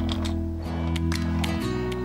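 Background instrumental music with plucked notes; the chords change twice.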